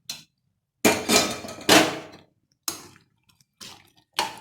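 Metal utensils clanking and scraping against a kadai as boiled chicken pieces are tipped in and stirred into the masala. There is a burst of loud clatter about a second in, then a few lighter knocks.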